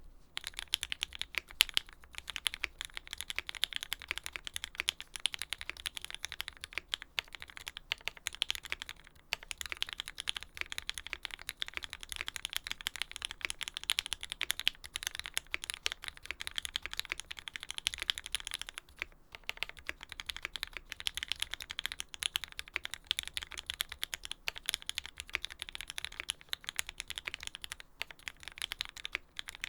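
Continuous fast typing on a Lyn Special Whale custom mechanical keyboard: lubed Tealios V2 linear switches with Cherry top housings in an aluminium plate, with GMK keycaps. A dense stream of key clicks that begins right at the start, pausing briefly twice.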